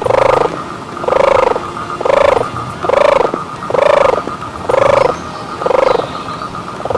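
An animal calling seven times, about once a second, each call a short rise and fall in pitch, over a faint steady tone.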